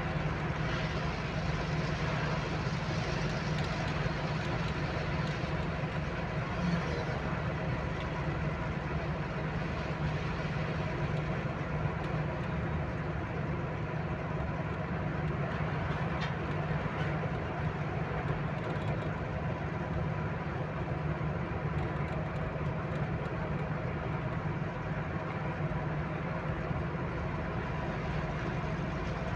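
Truck's diesel engine running steadily at cruising speed, with road and wind noise, heard from inside the cab: an even, unbroken low drone.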